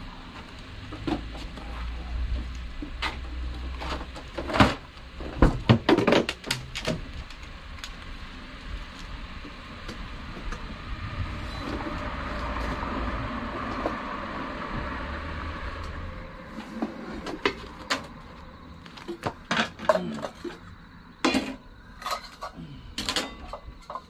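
Pots, utensils and gear knocking and clinking as cookware is handled and set out by a portable gas stove, the knocks scattered and growing denser near the end. Under it a low rumble swells in the middle and drops away about two-thirds of the way through.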